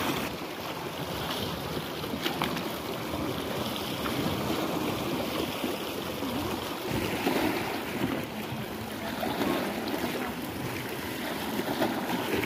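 Sea waves washing and splashing against shoreline rocks, with wind on the microphone.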